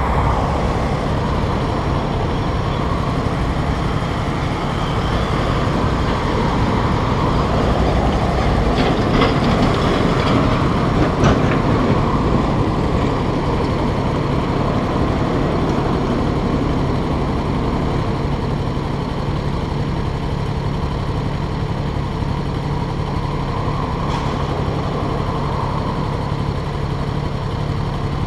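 Yamaha XJ6's 600 cc inline-four engine idling steadily while the bike stands still, with street traffic passing nearby.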